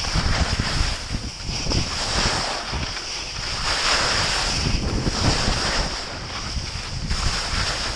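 Wind buffeting a GoPro's microphone during a downhill ski run, with the hiss of skis sliding and carving over snow swelling and fading every second or two.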